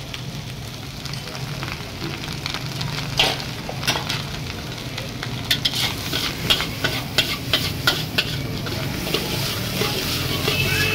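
Metal spatula scraping and clanking against a large steel wok as rice is stirred and tossed, over a steady sizzle of frying and a low rumble underneath. The clanks start about three seconds in and come quickest in the middle.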